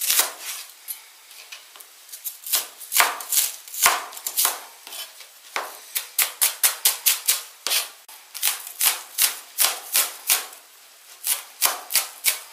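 Kitchen knife finely chopping shallots on a plastic cutting board: sharp knocks of the blade striking the board, irregular at first, then a quick even run of about six strokes a second in the middle, with short pauses between runs.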